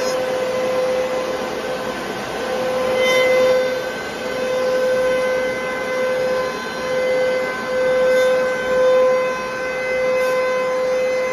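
Gau Jing four-sided moulder with six cutter spindles running at high speed, its spinning cutter heads giving a steady whine over the rushing noise of boards being planed. The loudness swells and eases several times as the boards pass through the cutters.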